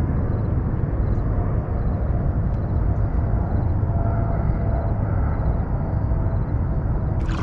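Steady low rumbling outdoor noise at an even level, with a faint, evenly repeating high chirp.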